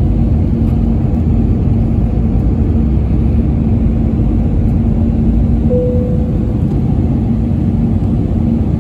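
Airliner cabin noise on approach: a steady low roar of the jet engines and rushing air, with a constant low hum. About six seconds in, a short higher tone sets in and fades.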